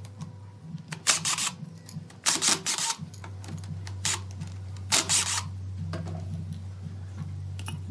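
Makita cordless driver driving screws through a metal lathe faceplate into a wooden vase: three short bursts, about a second in, at two and a half seconds and at five seconds, over a steady low hum.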